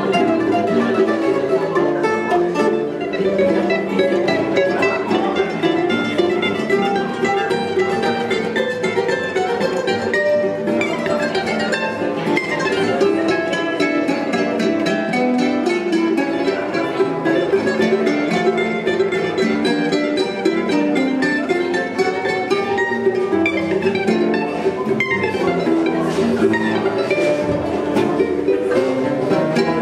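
Acoustic choro ensemble playing a tune on bandolim, acoustic guitars and cavaquinho, with plucked strings throughout.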